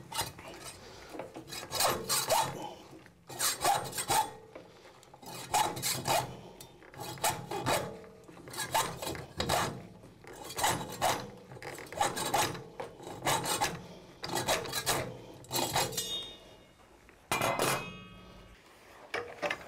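Hacksaw cutting across a steel-wire-armoured cable, through the PVC outer sheath and halfway into the steel armour wires, in slow, even back-and-forth scraping strokes, about one push and pull every second and a half. The sawing stops shortly before the end.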